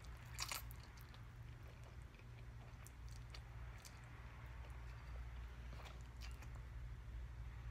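A person slurping up and chewing spicy instant noodles: wet mouth sounds with a handful of short sharp smacks and clicks, quiet overall.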